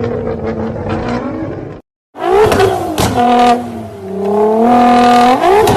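Nissan GT-R R35's twin-turbo V6 exhaust, loud: running steadily, then after a brief dropout revved twice, the pitch climbing and held high each time with a dip between.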